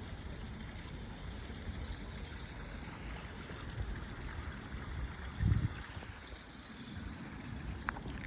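Canal water running and trickling steadily, with a low rumble underneath. A single dull low thump comes about five and a half seconds in.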